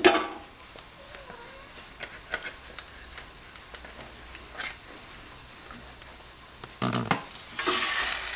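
A sharp knock at the start, then a few light clicks of tongs and pot. Near the end, a floured chicken thigh goes into hot vegetable oil and starts frying with a loud sizzle.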